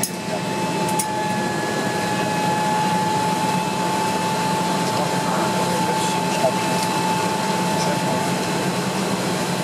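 Cabin noise of a Bombardier Dash 8-100 on the ground, with its turboprop engine running just outside the window: a steady drone with an even, high whine.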